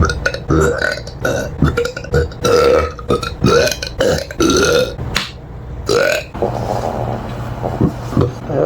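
A person burping over and over in quick succession: a string of short, loud belches about two a second, the later ones near the end smaller.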